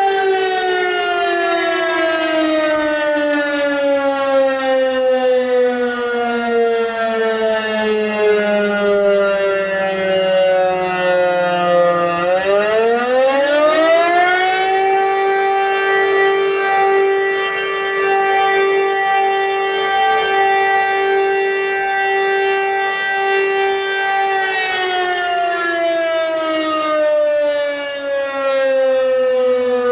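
Fire brigade alarm siren sounding to call out the volunteer firefighters: a two-note wail that falls slowly for about twelve seconds, rises again within a couple of seconds, holds steady for about ten seconds, then starts to fall again near the end.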